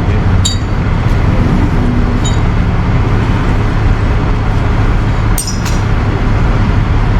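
A vehicle engine running steadily with a low rumble. Sharp metallic clinks ring out about half a second in, again a couple of seconds in, and twice more near the end.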